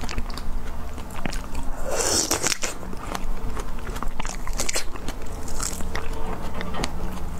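Close-miked eating of fresh strawberries: wet biting and chewing with many small clicks and crackles, the loudest burst about two seconds in.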